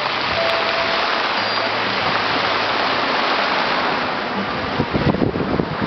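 Steady rushing hiss of wind. Near the end, gusts start buffeting the microphone in uneven low rumbles.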